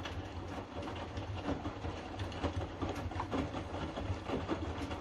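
Hotpoint washing machine on the main wash of its Fastwash 60 programme: the drum turning the load, with a steady low motor hum and irregular soft knocks.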